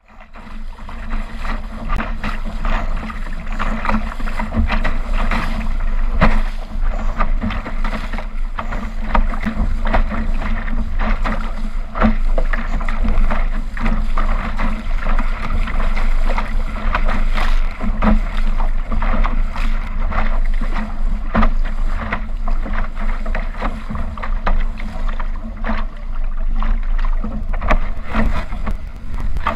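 Laser dinghy hull slapping and splashing through choppy water, with spray and rushing water over the bow and frequent irregular knocks as it hits the waves. A constant low rumble of wind buffets the microphone.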